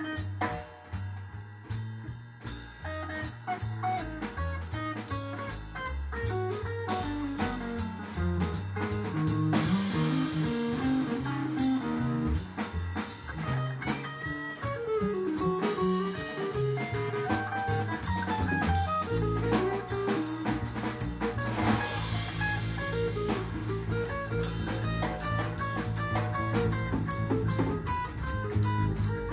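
Live small-group jazz: an electric guitar plays a single-note solo over upright bass and a drum kit keeping steady time.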